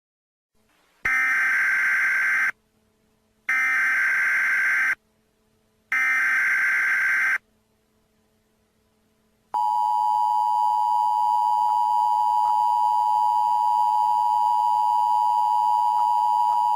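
Emergency Alert System header: three short bursts of screeching digital SAME data tones, each about a second and a half long with short gaps. About two thirds of the way in, a steady EAS attention tone starts and holds.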